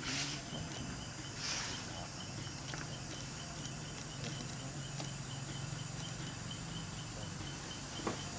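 Outdoor ambience of insects chirping in a steady, even pulse. Two short rustles come in the first two seconds.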